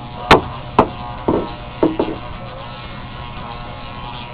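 Electric dog clippers running with a steady buzz, with four sharp knocks in the first two seconds.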